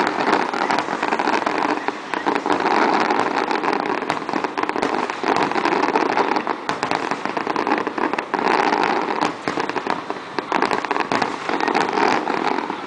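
Fireworks display with many aerial shells bursting at once: a dense, continuous crackle of reports with no pause.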